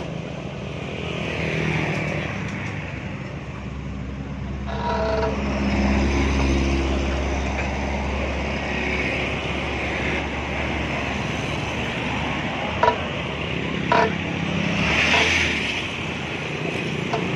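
Road traffic and engine noise, with a vehicle rumbling past around the middle, then two sharp metal knocks near the end, about a second apart, as work goes on at the truck's wheel.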